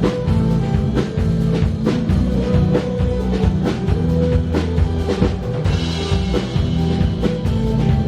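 Live band music as heard on stage: drum kit with bass drum and snare keeping a steady beat under a sustained bass line.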